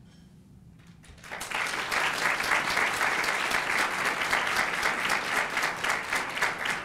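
Audience applauding, starting suddenly about a second in and going on steadily.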